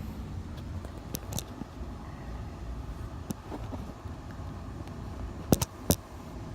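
Volkswagen Jetta 2.8 VR6 engine running at idle as a steady low hum, with a few sharp clicks, the loudest two close together near the end. The owner describes a rattle from this engine at start-up that persists after new plug wires and spark plugs.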